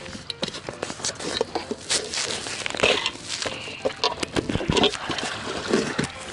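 Close handling noise: padded jacket fabric and gear rubbing and knocking right against the camera microphone, a busy run of rustles, scrapes and sharp clicks while fishing gear is packed up.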